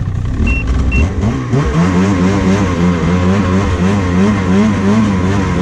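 Snowmobile engine revving under load, pushing two riders through deep powder snow, its pitch rising and falling with the throttle. Two short high beeps sound about half a second apart about a second in.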